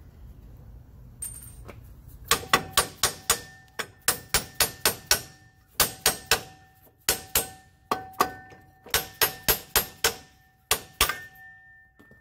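Hammer blows on the cast rear brake drum of a 1978 Cushman, knocking the tight drum loose. There are many sharp strikes in bursts, about two or three a second, and the metal drum rings after each blow.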